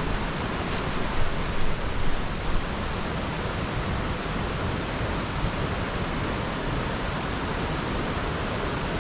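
Steady rushing of river water, an even broad noise, with a few brief louder bumps in the first three seconds.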